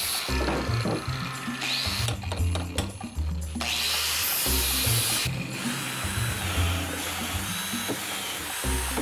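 Angle grinder grinding the edges of steel flat bar, with a brighter, sharper stretch of grinding about four seconds in, then a drill working the bolt holes, under background music with a steady bass beat.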